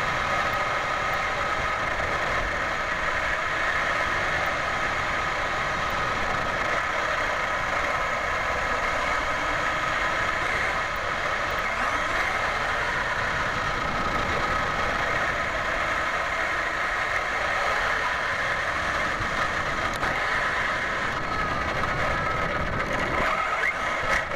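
Steady wind rush on the microphone of a small keychain camera carried aloft on a kite string, with a steady hum of several fixed tones under it.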